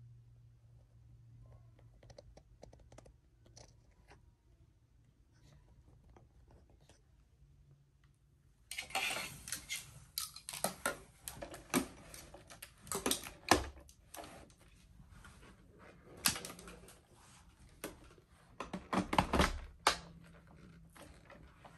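Hard plastic parts and the power cord of a Shark NV380 upright vacuum being handled during assembly. There are faint scattered clicks for the first eight seconds or so, then a busy run of sharp clicks, knocks and rustles, some of them loud. The vacuum's motor is not running.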